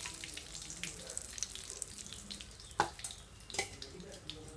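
Hot cooking oil sizzling faintly with scattered crackles, dying down as the fried fish fingers come out of it. A couple of sharp clicks about three seconds in.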